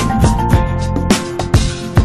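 Background music with a steady drum beat and a melody of plucked notes.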